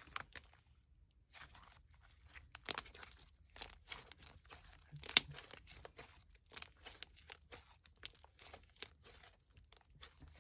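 Soft, creamy slime being squished and stretched by hand, giving irregular small crackles and sticky clicks.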